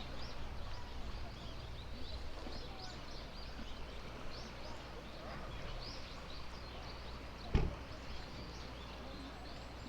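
Many small birds chirping and twittering in quick, scattered calls over a steady low outdoor rumble, with a single thump about seven and a half seconds in.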